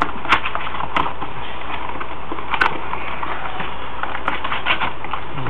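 A cardboard trading-card box being opened and handled: scattered light clicks and crinkling of the box and packaging over a steady low hum and hiss.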